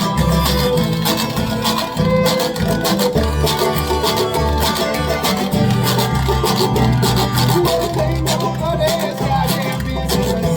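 Live acoustic folk band playing an instrumental passage: banjo picking over a bass line, with a steady clicking rhythm from spoons.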